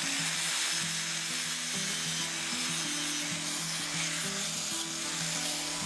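Angle grinder grinding the end of a 13 mm steel rebar rod held in a vise: a steady abrasive hiss of the disc on the steel.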